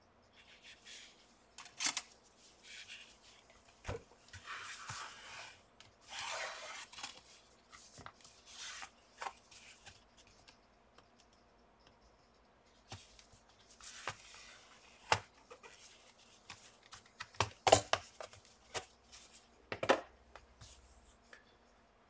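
Acer Aspire S7-391 laptop's bottom cover being handled and pried off: scattered scraping and rubbing with sharp clicks, and a run of louder clicks near the end as the cover comes away.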